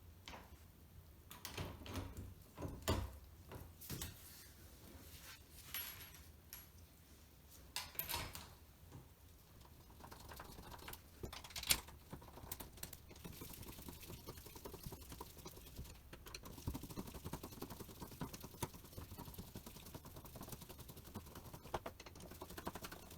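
Faint metal clicks and knocks of a Schlage lever door handle being handled and pushed back onto its spindle, with a light, quick rattling of small ticks through the second half.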